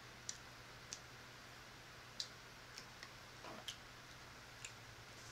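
Faint, irregular mouth clicks and lip smacks of someone chewing a barbecued pork spare rib, about half a dozen over a few seconds.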